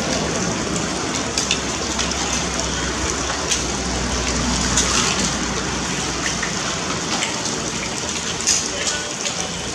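Oysters being shucked: a few sharp clicks of a metal pick prying at oyster shells over a steady rush of water.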